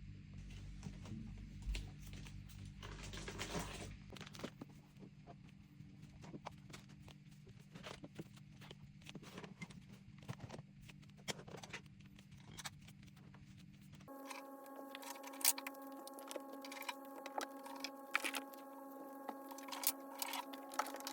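Small objects being handled and set down on a table: scattered light clicks and knocks, with a brief rustle about three seconds in. A steady low hum sits underneath and gives way about two-thirds through to a different steady hum with several higher tones.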